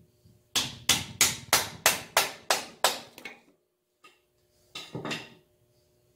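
Hammer blows on metal at the front axle of a John Deere 4720 compact tractor: about eight sharp, evenly paced strikes at roughly three a second, then two or three quicker knocks a couple of seconds later.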